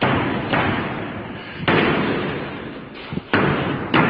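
A run of about five loud, heavy bangs at uneven intervals, each ringing out with a long echoing decay. These are the unexplained banging noises being investigated in the house.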